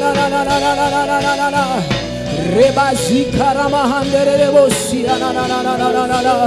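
Gospel worship music: voices singing long held notes with vibrato over instrumental backing.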